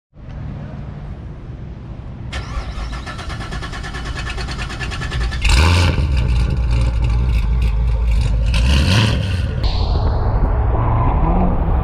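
Modified C7 Corvette Grand Sport's 6.2-litre V8 exhaust running and being revved, turning suddenly louder about five and a half seconds in. Near the end the car is heard on a wet road, its sound falling in pitch as it goes by.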